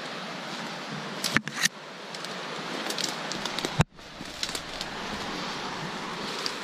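Dry brush and twigs rustling and snapping as someone pushes through a dense thicket on foot, with many small cracks. A sharp knock comes a little under four seconds in, and the sound cuts out for a moment after it.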